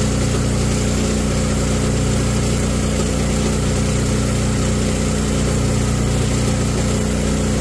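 Gasoline DC generator set's engine running steadily under load while charging a 60 V lithium battery bank, with an even, unchanging pitch.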